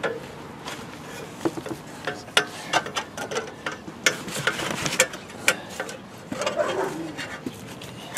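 Irregular sharp clicks and knocks of tools and metal parts being handled, spread unevenly over several seconds.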